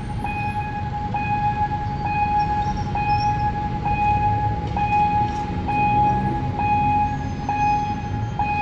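Railway level-crossing warning signal sounding as the crossing barriers come down: a steady electronic tone that restarts a little faster than once a second. A low rumble runs underneath.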